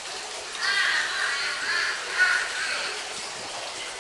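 A run of harsh animal calls in the first three seconds, the loudest a little past the two-second mark, then a faint steady background hiss.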